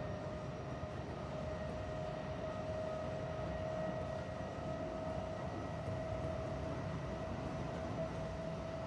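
Kintetsu 1620 series electric train running, heard inside the motor car: a steady whine from the traction drive under the floor, creeping slightly higher in pitch, over a low rumble of wheels on rail.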